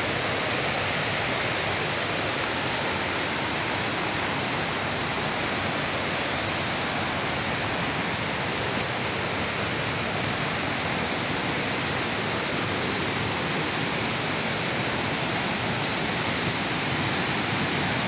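Steady rush of fast-flowing creek water, an even hiss without let-up, with two faint ticks about halfway through.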